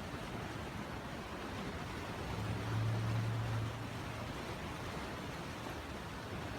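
Steady rushing background noise, with a low hum that swells briefly about halfway through and then fades.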